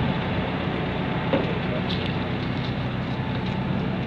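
Forklift engine running steadily at idle, a constant low hum.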